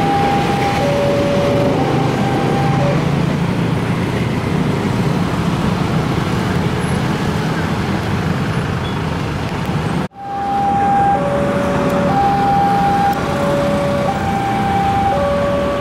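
Level-crossing warning signal sounding an alternating two-note chime, high then low, about one note a second, over steady motorcycle and car traffic. The chime fades out after a few seconds, then after a sudden break resumes.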